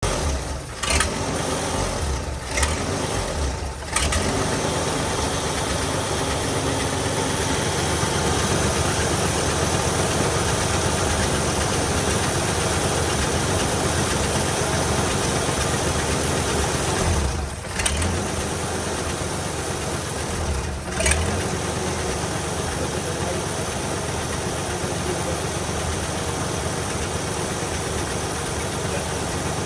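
1985 Ford F-150's inline-six engine running steadily, with a few brief stumbles and jolts: three in the first four seconds and two more later on. The owner suspects a misfire after recent distributor work.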